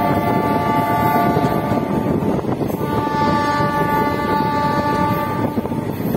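DEMU train horn sounding two long multi-tone blasts with a short gap between them, heard from aboard the train over the steady rumble of the train running on the rails. The first blast is already sounding and stops about two seconds in; the second stops shortly before the end.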